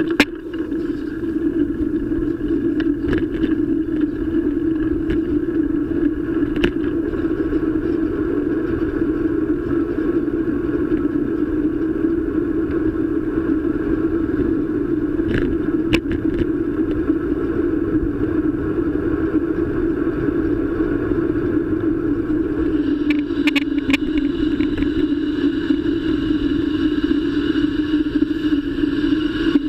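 Steady loud rumble and rattle from a bicycle-mounted camera while riding, with a few sharp clicks. This is the mount noise that the rider apologises for.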